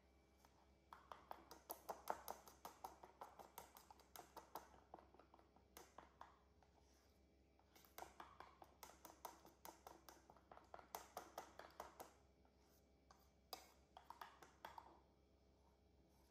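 Metal spoon clinking rapidly against a ceramic bowl while stirring pancake batter, in three runs of quick taps with short pauses between them.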